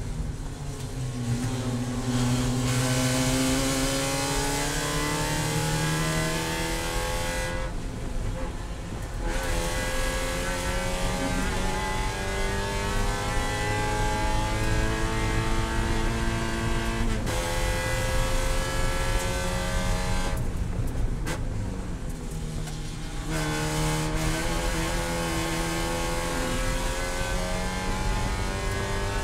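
Spec Miata's four-cylinder race engine heard from inside the cockpit at racing speed, its note climbing steadily as the revs rise. Twice, about eight seconds in and again just past twenty seconds, the note drops away for a second or two before climbing again.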